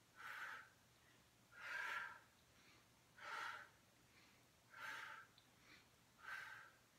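A woman breathing out hard in a steady rhythm, five short exhales about a second and a half apart, one with each repetition of a strenuous exercise.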